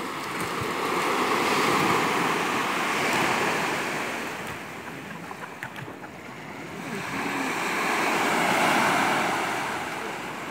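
Small waves breaking and washing up a sand beach, the surf swelling twice, about six seconds apart, and falling away between.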